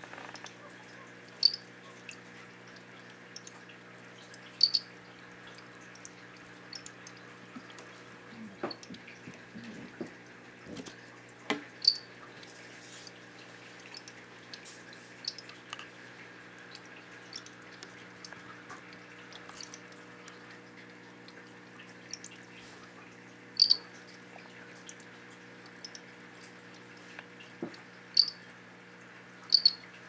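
Golden mantella frogs calling: short, high, cricket-like chirps, single or in close pairs, spaced irregularly several seconds apart over a steady low hum.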